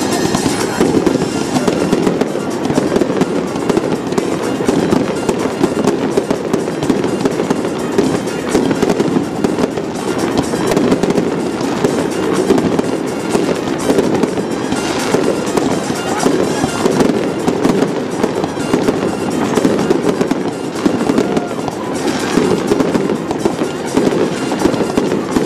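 Aerial fireworks bursting and crackling without a break, many small pops and crackles packed close together, with music playing along.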